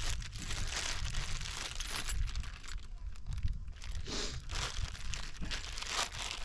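Clear plastic parts bag crinkling in gloved hands as they rummage in it, in uneven crackles.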